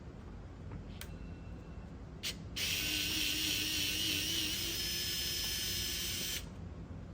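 Small electric screwdriver running for about four seconds, driving out a small screw from a radio transmitter's case, after a couple of light clicks. The whir holds steady with a slightly wavering pitch and cuts off suddenly.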